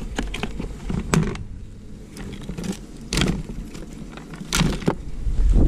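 Hands working inside the open plastic battery box of a home-built electric quad bike: scattered clicks, knocks and rustles of plastic and wiring, with wind rumbling on the microphone at the start and again near the end.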